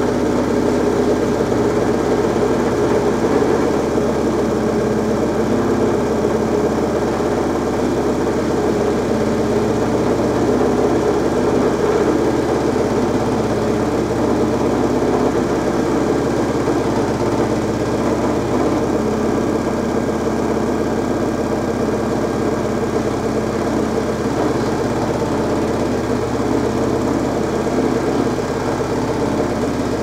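LG F12B8MD1 front-loading washing machine spinning its drum, a steady, even whir of drum and direct-drive motor with no knocks or changes in pitch.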